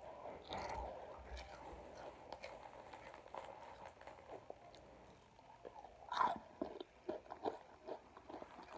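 A person biting and chewing a crunchy snack: scattered soft crunches, with one louder crunch about six seconds in.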